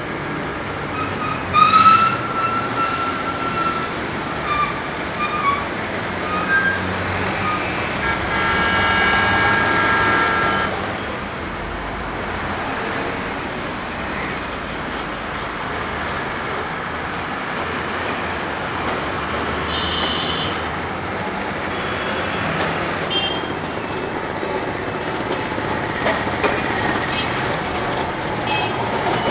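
Busy city street traffic with trams and buses passing, a steady background rumble. Vehicle horns sound over it: a short honk about two seconds in, a longer horn with several tones about eight seconds in, and a brief high ring around twenty seconds in.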